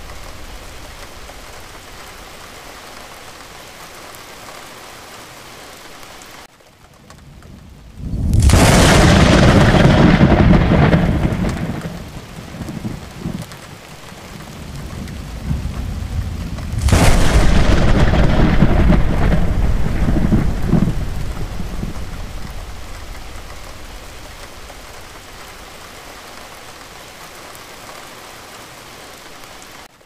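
Steady rain with two loud claps of thunder, one about eight seconds in and another about seventeen seconds in. Each begins with a sharp crack and rolls into a long rumble that fades over several seconds, and the rain carries on after them.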